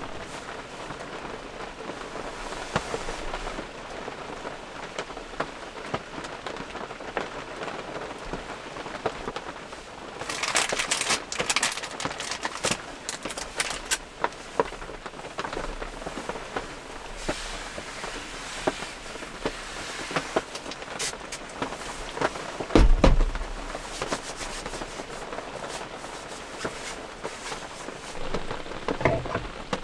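Rain pattering on the roof and walls of a small camper, heard from inside, as a steady hiss with many irregular drop ticks that grow denser about ten seconds in. A dull thump a little after twenty seconds is the loudest sound.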